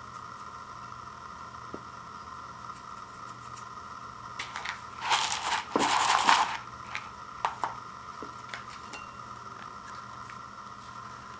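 Packaging being handled: one loud crinkling rustle lasting about a second and a half about five seconds in, then a few light crinkles as the foil cheese sauce packet is handled, over a steady faint hum.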